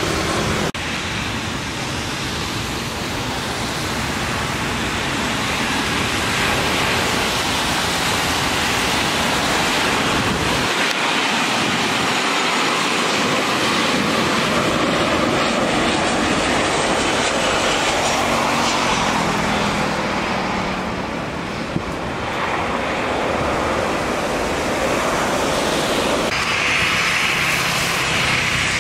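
Jet airliner engines running in heavy rain: a steady rushing noise mixed with the hiss of rain and water spray. Near the end a taxiing Boeing 737's turbofans add a higher whine.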